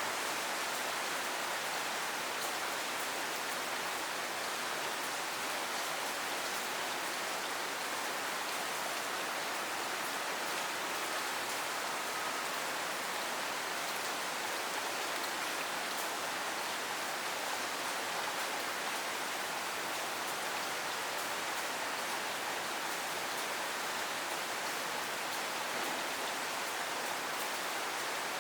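Steady rain falling and pattering on surfaces, an even hiss of many fine drops.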